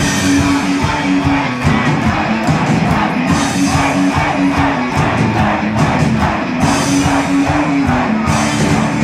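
Live rock band playing loud and fast: electric guitars over bass and drums, with a steady fast rhythm and held low notes, heard from in the audience of a hall.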